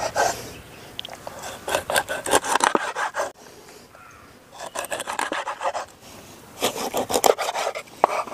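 Large kitchen knife sawing through a rohu fish's scaly skin and backbone into steaks on a wooden cutting board: rapid rasping strokes in several bursts about a second long, with short pauses between.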